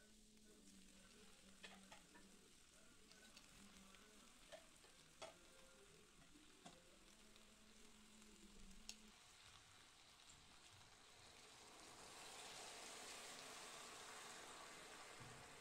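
Faint sizzling of onions frying in a nonstick skillet, with a few light clicks. From about twelve seconds in, the hiss grows louder as chicken broth is poured into the hot pan.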